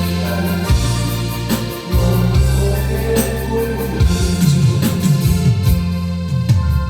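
Instrumental backing music with electronic organ-like keyboard chords, a bass line and a regular drum beat, with no clear singing.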